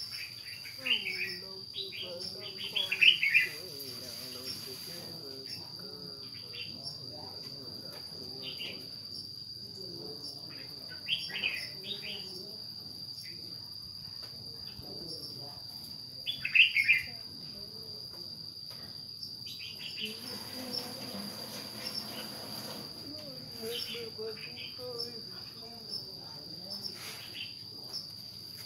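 Insects trilling steadily on one high note, with short bird chirps breaking in several times. The chirps are loudest a few seconds in and again a little past halfway.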